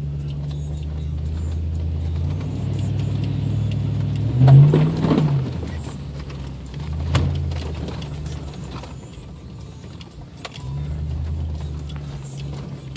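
2001 Toyota Tundra 4x4's engine running steadily as the truck drives a muddy off-road track, heard from inside the cab. The engine revs up and falls back briefly about four and a half seconds in, with a few knocks around then and again a couple of seconds later.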